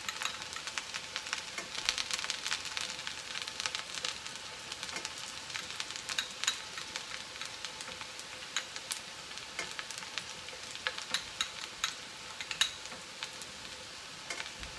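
Green tea soba noodles sizzling in sesame oil on a hot electric griddle: a steady high hiss with frequent small crackles and pops.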